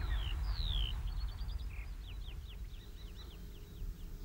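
Songbirds singing: a few clear downward-slurred whistles in the first second, then quick runs of short high chirps, over a low steady rumble.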